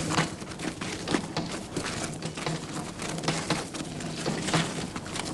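Small hand-pushed rail trolley rolling along a narrow-gauge track: irregular clatter and knocks over a low rumble.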